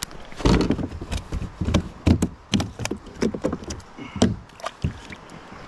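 Irregular knocks and thumps against the plastic hull of a fishing kayak as fish and gear are handled aboard, about a dozen in quick succession, the loudest about half a second, two seconds and four seconds in.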